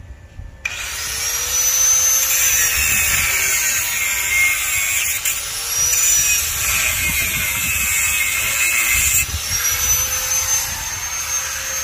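Electric power drill running at a steel window grill in three long runs, the first starting about a second in, its whine dipping and rising as it works.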